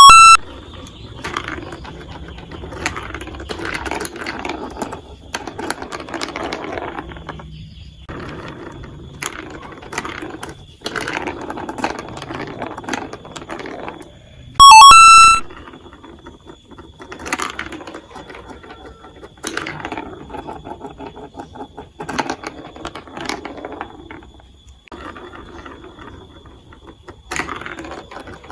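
Plastic marble run pieces clicking and rattling, with marbles rolling and clattering through the plastic track in uneven spells. A very loud, brief ringing tone with several overtones sounds about halfway through.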